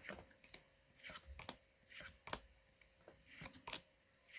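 Magic: The Gathering trading cards being handled and sorted into piles, with a series of light taps and soft slides as cards are set down on the table.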